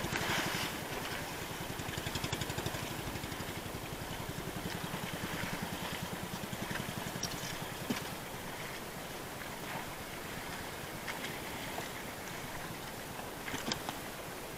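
Small fishing boat's engine running with an even low chugging pulse, strongest at first and fading away by about halfway, over steady water hiss. A few light knocks sound about halfway through and again near the end.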